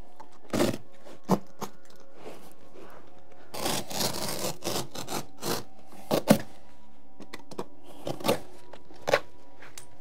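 Old wall-to-wall carpet and its pad being pulled up from a floor by hand: a run of scraping and ripping noises with sharp cracks scattered through, a longer tearing stretch near the middle, and the loudest crack a little after the middle.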